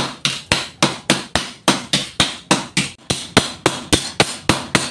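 Blacksmith's hammer striking steel on an anvil in a steady run of ringing blows, about four a second.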